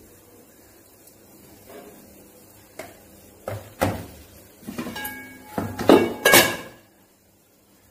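Kitchenware knocking and clinking: a quick run of sharp knocks starting about three seconds in, several ringing briefly, the loudest around six seconds in.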